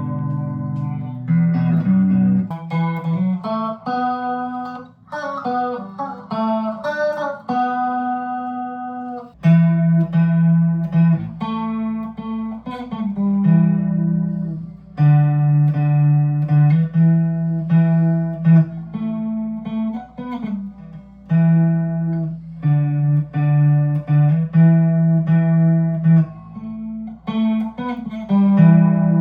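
Harley Benton S-Style electric guitar played through an amp: a melodic line of single notes, then about nine seconds in a switch to a run of held, repeated chords.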